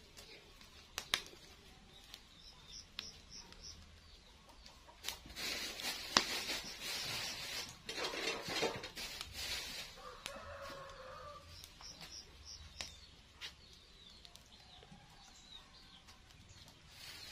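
Chickens clucking, with a noisy flurry lasting several seconds around the middle and a short hen call just after it. Small birds chirp quick high notes twice, and a few sharp cracks come from the wood cooking fire.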